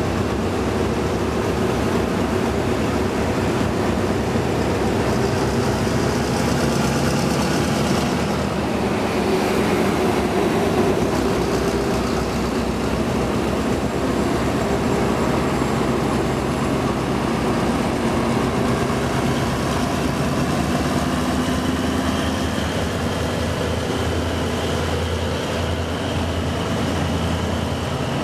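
Hitachi 8FA-36C diesel-electric locomotive's diesel engine running steadily at close range.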